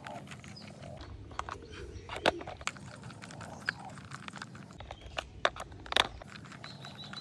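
Small screwdriver turning screws into the plastic underside of a toy bullet train, with irregular clicks and scrapes of plastic being handled; the sharpest clicks come about two seconds in and about six seconds in.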